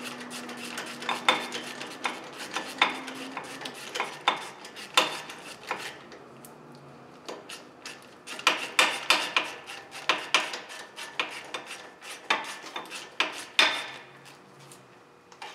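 Hand ratchet clicking in short bursts, with clinks of metal tools, as the bolt holding the brake cable is run in and tightened.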